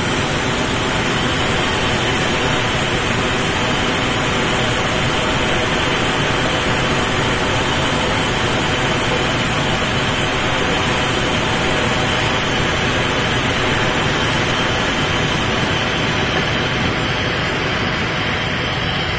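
Sawmill band saw running steadily and cutting wood fed by hand through its blade: a loud, constant machine noise with a steady hum.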